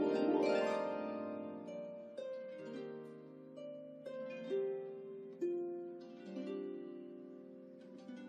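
Background music of plucked string notes: a rising run of notes at the start, then slower single notes, each ringing out and fading.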